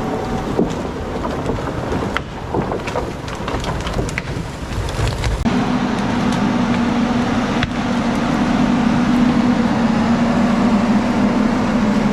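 Heavy vehicle engine running, with a clatter of sharp knocks over the first half. About halfway through it settles into a steady, even drone.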